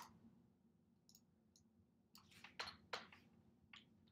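Near silence with a handful of faint computer mouse clicks, the strongest few bunched together between two and three seconds in, over a faint steady low hum.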